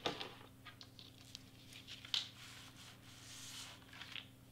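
Sheets of cardstock being slid and shifted by hand across a cutting mat: paper rustling and scraping, with a few sharp ticks, the loudest near the start and about two seconds in.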